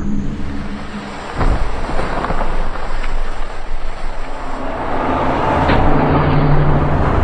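Deep rumbling sound effects with a sudden heavy boom about a second and a half in, then a low droning groan near the end.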